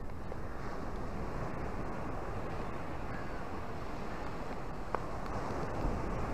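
Small ocean waves breaking and washing up a sandy beach by rocks: a steady rush of surf, with a single short click about five seconds in.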